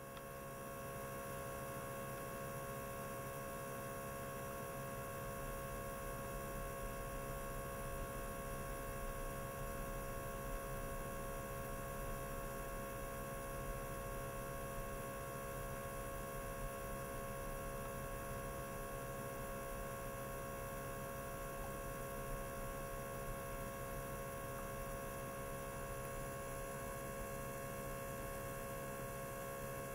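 42 kHz ultrasonic cleaner running with a glass container of water in its tank: a steady electrical hum with several constant higher tones.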